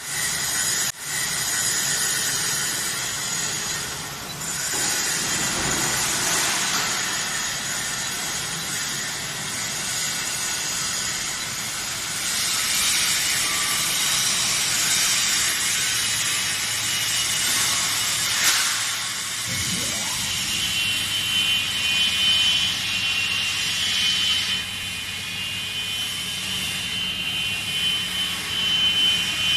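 CNC wood cutting saw running and cutting timber: a steady machine hiss, with a short knock and slide just before two-thirds of the way through, after which a steady high whine from the blade joins in.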